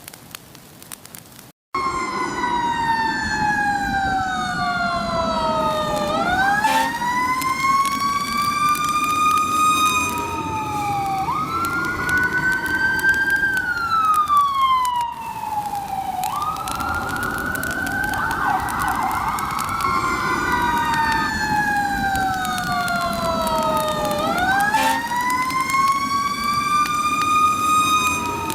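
Emergency sirens wailing, several overlapping tones slowly gliding up and down over a low rumble, starting suddenly about two seconds in.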